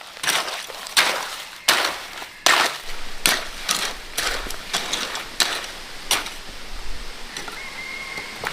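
Repeated strokes of a hand tool at work, about one every three quarters of a second, growing fainter after about six seconds.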